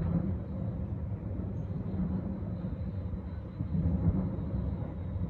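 Low, steady outdoor rumble of distant city noise, swelling slightly about four seconds in.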